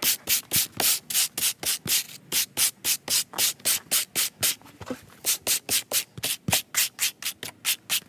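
Steel wire brush scrubbed rapidly back and forth over a Velcro (hook-and-loop) strip, a scratchy stroke about four times a second with a short pause a little past halfway. The brushing combs lint out of the hooks to renew their grip.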